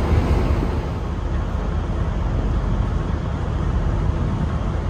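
Steady low rumble with a haze of hiss over it, the running noise of a moving vehicle.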